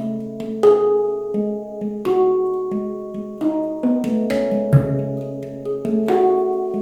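Handpan played solo: struck notes ring out and overlap in a slow, unhurried melody. A few sharp, brighter strikes stand out, with a deeper bass note sounding about five seconds in.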